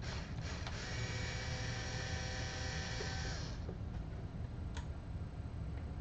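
Ryobi cordless electric screwdriver running a screw out for about three and a half seconds: a steady motor-and-gear whine that winds down in pitch as it stops. A few light clicks come before and after it.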